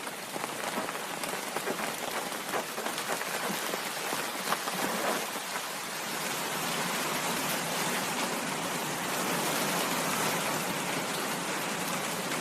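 Krotos Studio 'rainforest garden' ambience preset playing rain: a dense, steady rainfall with individual drops pattering, fading in at the start and swelling slightly about halfway through.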